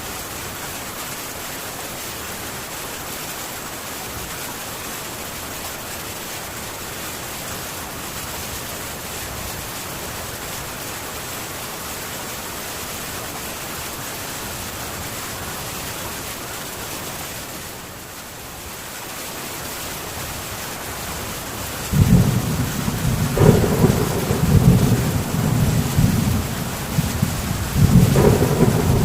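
Heavy rain beating steadily on a metal tin roof, easing briefly; about three-quarters of the way through, loud rolling thunder breaks in and rumbles on, surging again near the end.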